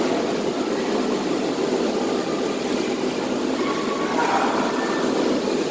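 Steady, even room noise of an indoor swimming pool hall.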